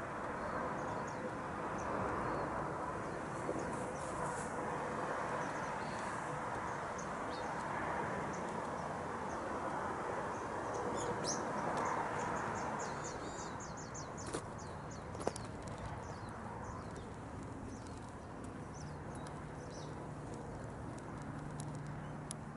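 Small birds chirping in short high calls over a steady background hiss, with a quick run of chirps about halfway through.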